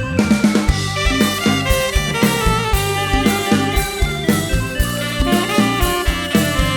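Live band playing an instrumental intro: sustained melody notes with a bass line and a steady drum-kit beat.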